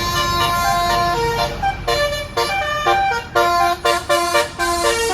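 Tour bus's basuri telolet multi-note air horn playing a tune in short, steady notes that step up and down in pitch, with a low rumble underneath.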